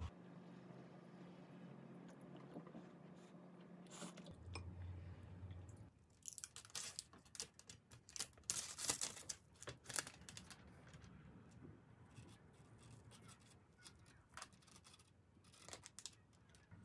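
Faint room hum at first. Then, from about six seconds in, rapid irregular crackling and tearing of the plastic film and paper liners wrapped around cake slices as they are handled and unwrapped, busiest a few seconds later.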